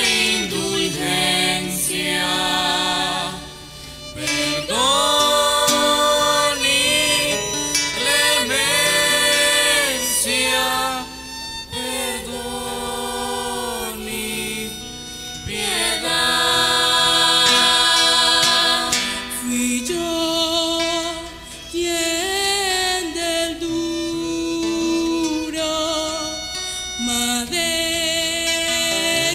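A soloist and a small youth choir singing a religious song through microphones and a PA, with long held notes that waver with vibrato, broken by short pauses between phrases.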